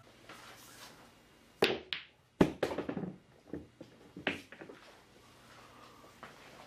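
A sharp knock, then a louder thud about two and a half seconds in, followed by a run of smaller taps and knocks and one more knock about four seconds in.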